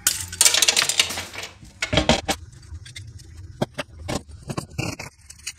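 A screwdriver scraping and prying at an aluminum heat sink held in a plastic housing, a dense run of clicks and scrapes. From about two seconds in come several sharp knocks as a hammer strikes the screwdriver and part.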